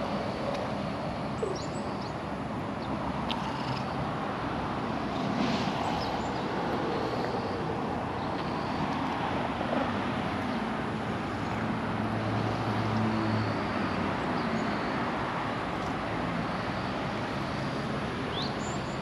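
Outdoor ambience: a steady wash of noise with a few short, high bird chirps scattered through it, and a low steady hum for a second or two past the middle.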